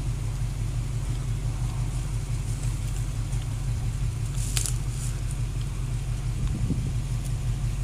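Truck engine idling steadily with a low rumble, and one sharp click about halfway through.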